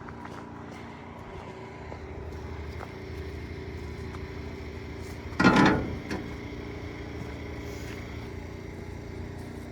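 Lamborghini Huracán Evo's V10 engine running steadily, with one short, loud burst of noise about halfway through.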